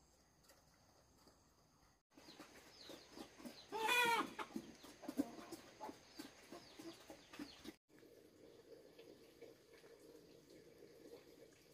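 Chickens clucking, with one loud call about four seconds in among many short chirps.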